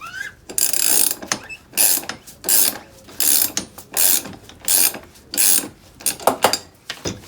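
Socket ratchet wrench cranked back and forth in about eight quick strokes, its pawl rasping on each stroke, roughly one every 0.7 s and weaker near the end.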